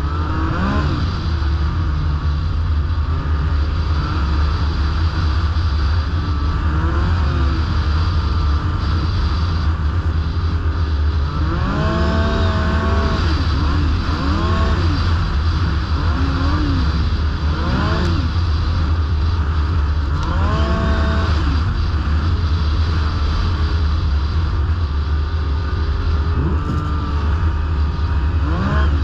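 Yamaha snowmobile riding along under power, its engine running over a steady low rumble, with the pitch rising and falling several times from about the middle on as the throttle is opened and eased.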